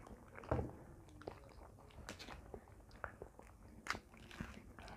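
Bananas being peeled and eaten: faint tearing of banana peels and chewing, with scattered small clicks. A louder thump about half a second in, and a sharp click a little before the end.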